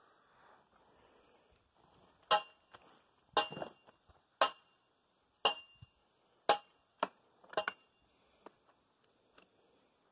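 Footsteps on a metal grate, roughly one a second, each step a sharp clank and several leaving a short metallic ring.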